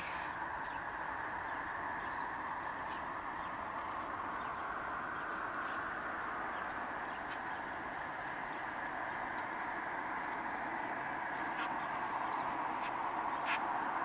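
A steady, even background rush with no clear pitch, and a few faint, short, high bird chirps scattered through it.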